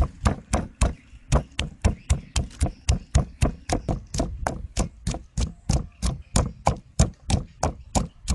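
Wooden pestle pounding garlic cloves and red chilies in a wooden mortar: steady, rhythmic knocks at about four strikes a second as the garlic and chilies are crushed to a coarse paste.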